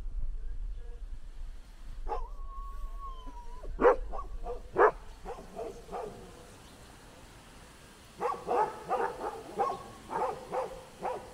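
A dog barking: a drawn-out whine, then two loud barks and a few smaller ones, then a quick run of short barks, about three a second, near the end.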